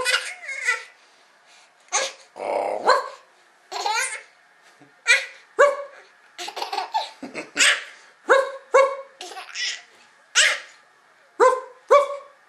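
A man and a baby imitating a puppy with their voices: a string of short, high yips and barks, often in pairs, mixed with a baby's laughter.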